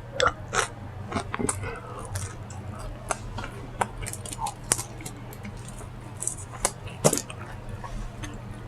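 A person chewing crunchy fried food close to the microphone: about a dozen irregular crunches and mouth smacks, over a steady low hum.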